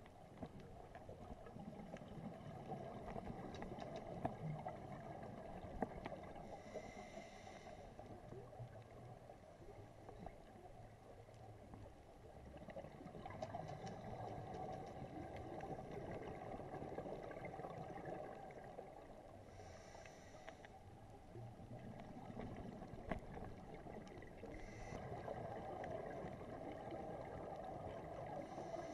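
Muffled underwater sound from a scuba diver's camera: the diver's exhaled bubbles gurgle and swell and fade in turn, and there are a few brief hisses from the regulator.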